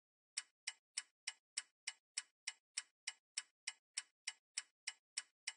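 Clock ticking steadily, about three ticks a second, the ticks alternately a little louder and softer in a tick-tock pattern.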